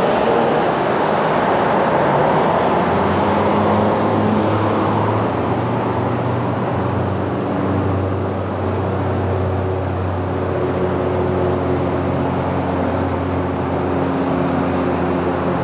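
Steady road-vehicle noise: cars running, with a continuous low engine hum, a little louder in the first few seconds.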